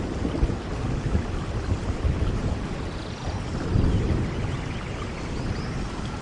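Steady rain falling in the open, with a heavy low rumble underneath that swells about halfway through, like distant thunder.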